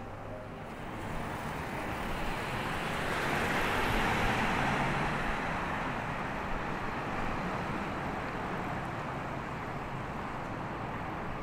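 Street traffic noise with a vehicle passing, swelling to its loudest about four seconds in and then easing back to a steady rush.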